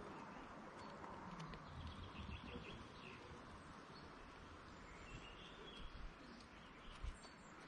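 Faint woodland ambience with scattered high bird chirps, and a couple of soft low thumps near the end.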